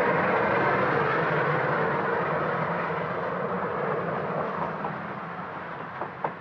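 A train of freight wagons rolling past, a steady rumble of wheels on rails that slowly fades, with a few sharp clicks near the end.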